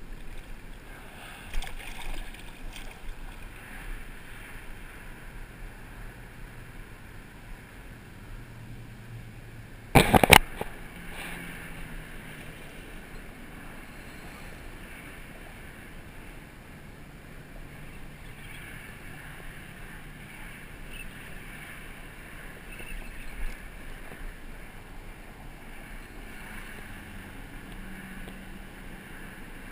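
Steady outdoor noise of open air and water at the shoreline, with a faint low hum. About ten seconds in there is one brief, loud burst, the loudest thing heard.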